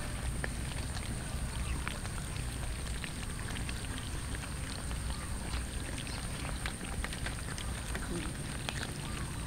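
Several cats eating raw chicken from a metal bowl: a steady scatter of small chewing and lapping clicks.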